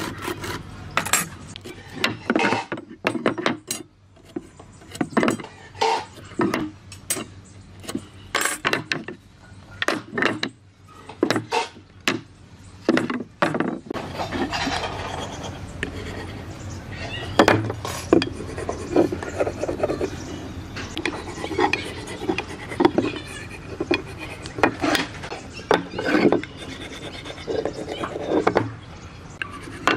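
Sharp taps and clicks as a steel square and pencil are set down and worked over wooden boards to mark them out. From about halfway, a wooden pin marking gauge scraping along the timber in quick, repeated strokes.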